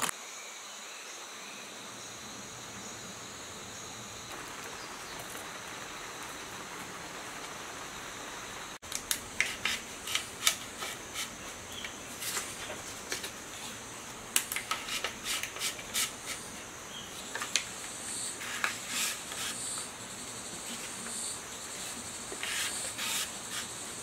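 Steady high insect chirring for the first several seconds. Then, about nine seconds in, a run of irregular sharp clicks and paper rustles as stiff slot-insulation paper is pushed into the slots of a generator's steel stator core with a metal hook tool.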